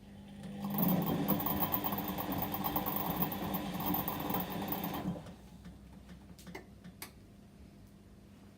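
Whirlpool washing machine's drum motor running on a 30° delicate programme, turning the drum for about four and a half seconds with a steady whirr, then stopping. A few faint clicks follow.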